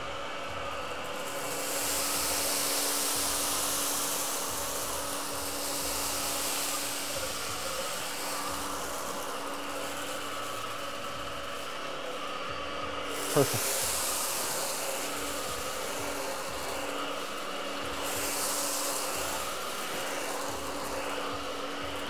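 Miele Triflex HX1 Pro cordless stick vacuum running on its lowest suction setting: a steady motor hum under a hiss of rushing air that swells several times as the electrobrush passes over and sucks up dry rice on low pile carpet. A short clatter stands out about thirteen seconds in.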